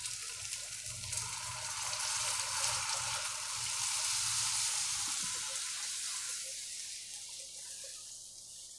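Water poured from a glass jug into hot, oily fried masala in a frying pan: a sizzling hiss that builds over the first few seconds, then fades after about six seconds as the water cools the pan.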